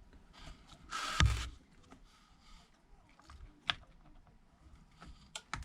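Small handling noises of iPad screen parts on a workbench: a short rustling scrape about a second in, then a few sharp light clicks and taps.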